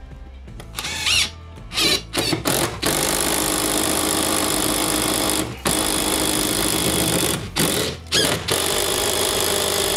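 Cordless impact driver driving a long screw into a wooden wall: a few short trigger bursts, then long runs of rapid hammering with brief pauses between.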